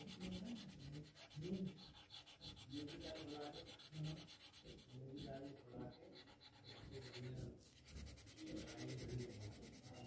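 Colored pencil scratching back and forth on drawing paper in rapid, even strokes as an area is shaded in; faint.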